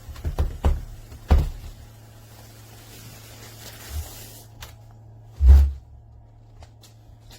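A few dull knocks and thumps, the loudest about five and a half seconds in, over a steady low hum.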